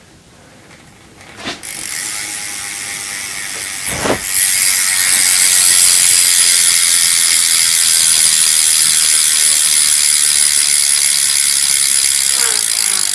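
Rear hub of an Eastern Shovelhead BMX freewheeling, its pawls ratcheting into a fast, continuous high-pitched buzz as the wheel spins. After a single click it starts about two seconds in and gets much louder about four seconds in.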